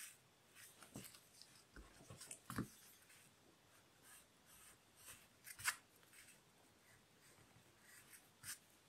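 Faint pencil strokes scratching on paper, short and irregular, with a sharper tick a little past halfway.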